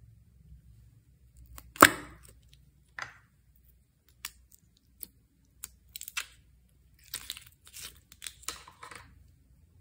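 Slime and its add-ins being handled, making scattered sharp clicks and crackles. One loud snap comes about two seconds in, and denser crackling follows near the end.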